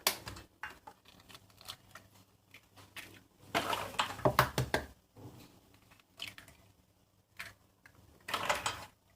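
Irregular clicks and taps of kitchen utensils and containers being handled while ingredients go into a mixing bowl, with louder clattering stretches about four seconds in and near the end.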